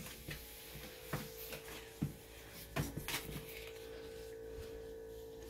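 Quiet room with a few soft clicks and rustles as a wicker basket holding plastic candy eggs and a paper clue card are handled, over a faint steady hum.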